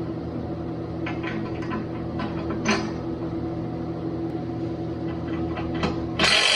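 Steady low machine hum with a few light metallic clicks and taps. About six seconds in, a grinder starts suddenly with a loud, high, hissing whine.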